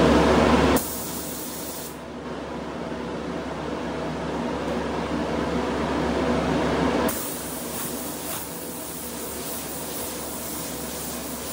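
Gravity-feed spray gun hissing as it sprays clear coat onto a helmet. A loud spray cuts off abruptly about a second in; another pass builds from about two seconds in and stops abruptly about seven seconds in, leaving a fainter steady hiss.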